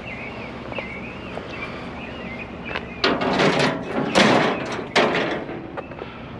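Metal wire shelving clattering and scraping in three loud bursts, each about a second long, in the second half.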